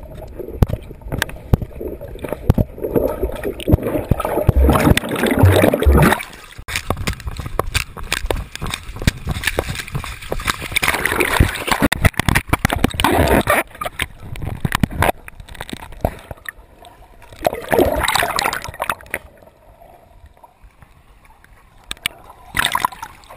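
Sea water splashing and gurgling around a GoPro strapped to a golden retriever's chest as the dog wades and swims, in irregular surges with knocks against the camera, quieter for a few seconds near the end.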